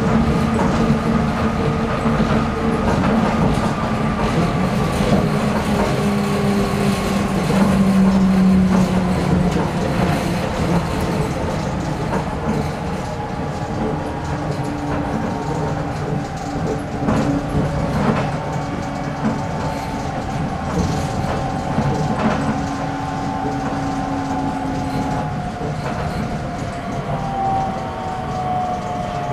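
A Toei 300-series rubber-tyred automated guideway train running, heard from inside the car. Its motor whine falls gradually in pitch, a sign that the train is slowing, and there are a few short knocks from the guideway joints.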